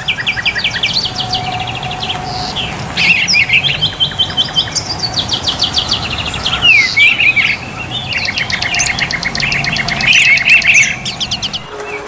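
Songbird singing in phrases of fast trills, rapidly repeated sharp notes with chirps and short whistles between them.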